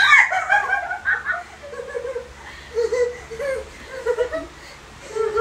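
Several people laughing and giggling. A loud, high burst comes at the start, followed by a string of short laughing syllables.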